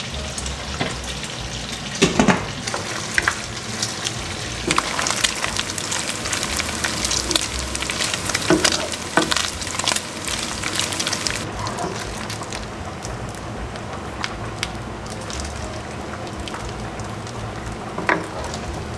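Chopped bacon frying in its own rendered fat, a steady sizzle with many sharp pops and crackles, while a wooden spoon stirs and knocks against the pan. The crackling is busiest in the first half and eases a little past the middle.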